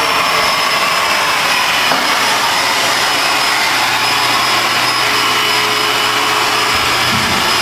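Woodworking shop machinery running steadily: an even rushing noise with a steady high whine over it.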